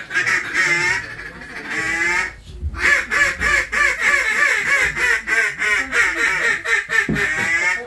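Mallard-style duck calling: runs of rapid quacks, several a second, with a short break about two and a half seconds in.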